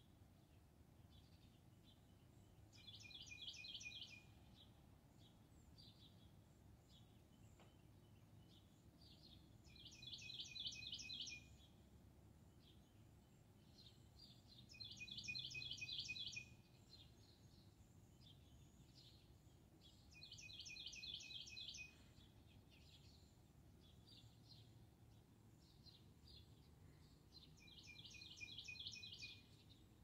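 Northern cardinal singing: five short phrases of rapidly repeated whistled notes, one every five to seven seconds, with faint short notes between phrases over a low background hum.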